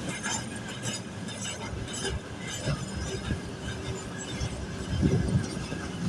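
Freight train wagons rolling slowly past, with a steady low rumble and irregular clanks and knocks from the wheels and couplings. The loudest knock comes about five seconds in.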